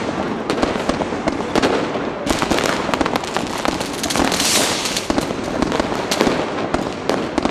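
New Year's Eve fireworks: firecrackers and rockets banging in quick, overlapping succession, getting denser about two seconds in, with a burst of crackling hiss about four and a half seconds in.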